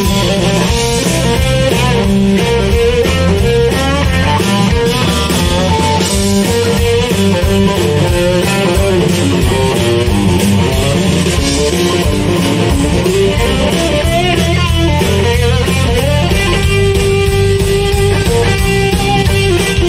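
Live blues band playing an instrumental break: electric guitar over bass and drums in a steady shuffling groove, with no singing.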